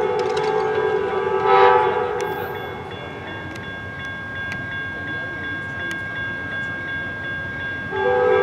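Amtrak P42 diesel locomotive's air horn sounding a chord as the train approaches a grade crossing: one blast cuts off about two seconds in, and a new blast starts near the end.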